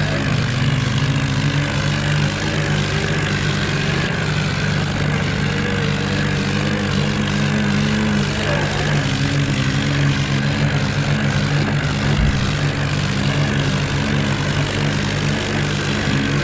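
Heavy diesel engines of a tractor and a bulldozer running steadily under load in a tug-of-war pull, with a wavering engine note above a steady low drone.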